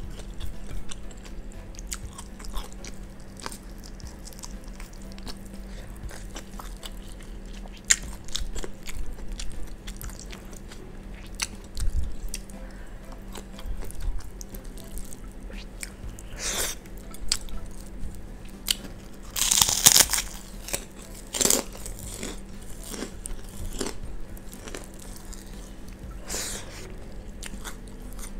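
Close-miked chewing and mouth sounds of a person eating rice and squid with her fingers, full of small wet clicks, with a handful of louder crunchy bites in the second half.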